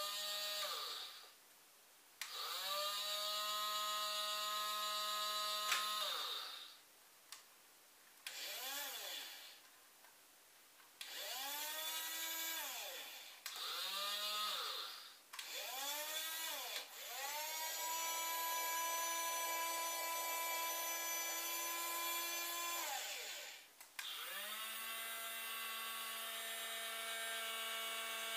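Small electric motor and plastic gearbox of a remote-control toy fire truck's ladder, whining in repeated runs as the ladder is raised. Each run rises in pitch as it spins up, holds steady, then falls as it winds down. There are about eight runs, the longest about six seconds.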